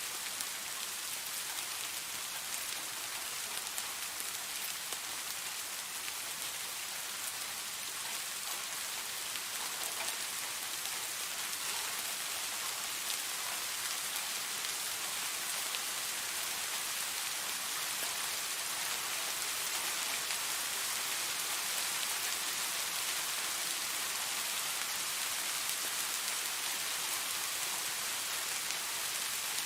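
Steady rain falling, an even hiss of dense rainfall with the fine patter of individual drops striking a surface.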